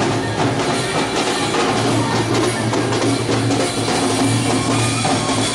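Street procession band playing loudly, drums beating through a dense mix of music.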